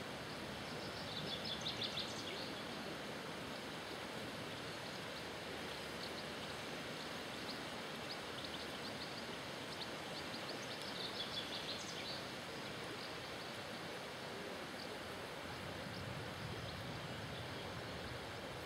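River water flowing steadily, with a small bird giving two short bursts of rapid high chirping, about a second in and again around eleven seconds in.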